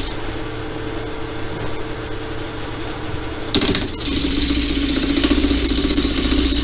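TDB wood lathe running while a wooden ring turning in its chuck is sanded by hand: a rubbing hiss over the motor's hum. The rubbing drops away for about the first three and a half seconds, then comes back abruptly.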